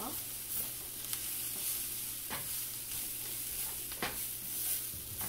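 Wooden spatula stirring banana flower stir-fry in a frying pan over a steady sizzle, with three louder scrapes against the pan about one, two and a half, and four seconds in.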